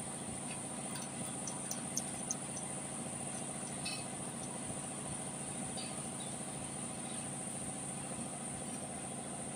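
Steady background hum with a constant high whine, and a few faint metallic clicks of a Toyota 2TR engine's timing chain being handled over its sprockets.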